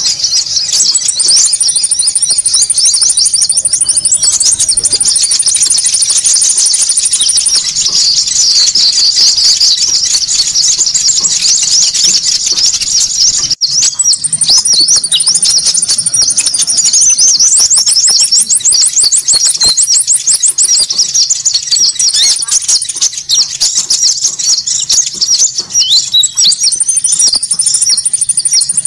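Bird-trapping lure recording of konin birds calling noisily: a dense, continuous mass of rapid high chirps, overlaid again and again by shrill trills. There is a brief break about halfway through, where the loop restarts.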